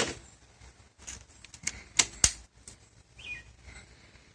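Scattered clicks and knocks of pressure washer wand and extension sections being handled and fitted together, the loudest about two seconds in. A short high chirp a little after three seconds.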